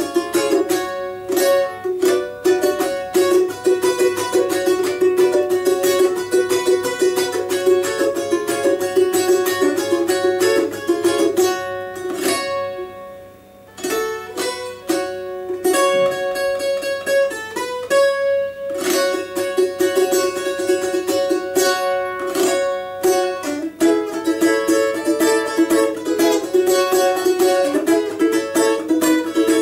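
Four-string balalaika with a doubled first string, tuned to open D major, strummed rapidly in chords and melody. The playing fades briefly about thirteen seconds in, then picks up again.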